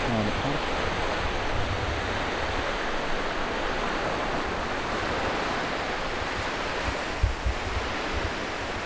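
Small waves breaking and washing up on a sandy shore: a steady rushing surf, with a few low bumps of wind on the microphone near the end.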